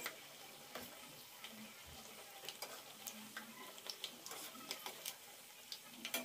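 Batter fritters deep-frying in a steel kadai of hot oil: a faint sizzle broken by scattered small crackles and ticks, with the metal ladle now and then touching the pan.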